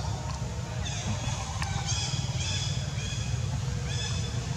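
Long-tailed macaques giving short, high-pitched squealing calls, repeated about every half second, over a steady low rumble.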